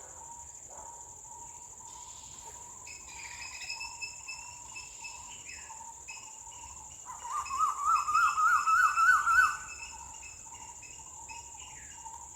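A steady high-pitched insect drone with scattered bird calls. About seven seconds in, a louder series of quick rising calls repeats for roughly two and a half seconds, then stops.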